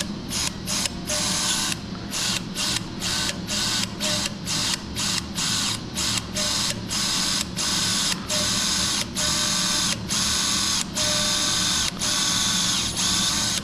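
Powered orthopaedic bone drill boring through a bone plate hole into the metatarsal bones, triggered in many short bursts that lengthen into longer runs in the second half. It is drilling the hole for a cortical screw across the metatarsals.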